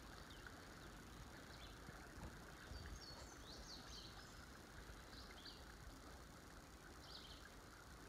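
Songbirds chirping: short high calls every second or so, a few bunched together about three seconds in, over a faint steady hiss of outdoor ambience.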